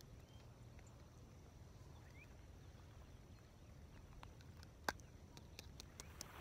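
Near silence with a faint low rumble; from about four seconds in, a run of small sharp clicks, one louder near five seconds, as hooks and lure are worked out of a freshly caught largemouth bass by hand.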